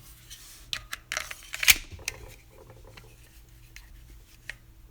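Scattered small clicks and taps of a Glock 43X pistol and a steel magazine being handled, with one sharper click under two seconds in.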